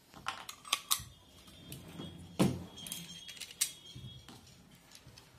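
Small metal and plastic parts of a refrigerator thermostat being handled, with scattered clicks and clinks and one louder knock about two and a half seconds in.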